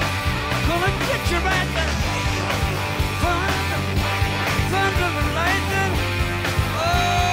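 Live hard rock band playing: distorted electric guitar, bass guitar and drums, with a man singing lead vocals.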